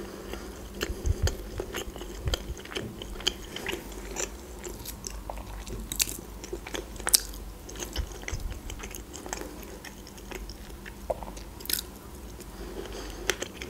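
Close-miked chewing of soft food, fried chicken liver and mashed potato, with many small wet clicks and smacks of the mouth.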